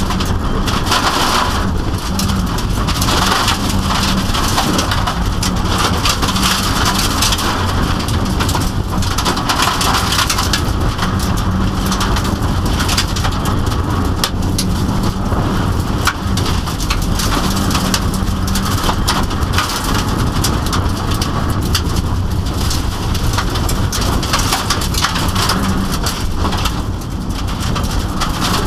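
Inside the cabin of a Subaru WRX dirt-trial car at competition pace on gravel: the turbocharged flat-four engine running hard under a steady loud rattle of gravel and stones pelting the underbody and wheel arches. The engine note comes and goes beneath the gravel noise.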